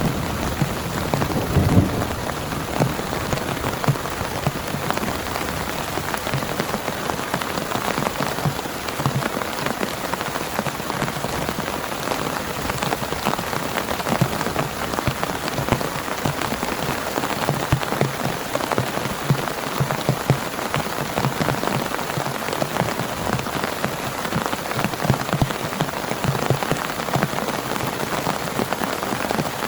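Heavy rain pouring steadily, with many separate drops striking close by. A low thunder rumble dies away in the first two seconds.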